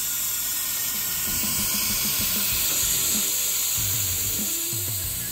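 Compressed-air venturi of a vacuum coolant-fill tool hissing steadily as it pulls a vacuum on the car's cooling system before coolant is drawn in. Music plays underneath.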